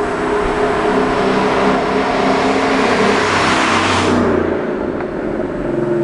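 2011 Ford Mustang GT's 5.0-litre V8, with a resonator delete and GT500 exhaust, driving past at about 40 mph and 3000 rpm. The exhaust note builds as the car approaches, and the sound dulls sharply as it passes about four seconds in.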